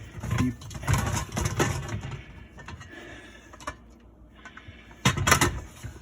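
Dishwasher parts knocking and clicking as a small part is handled and fitted during reassembly. A run of knocks comes first, then a quieter stretch, then a loud cluster of clicks about five seconds in.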